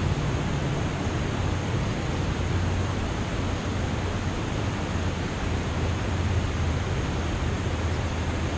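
Steady rush of river water spilling over a mill dam, an even, unbroken noise with a low rumble underneath.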